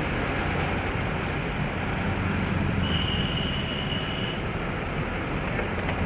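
Vehicle engine running with a steady low hum while on the move, over road and wind noise. A thin, steady high tone sounds for about a second and a half around the middle.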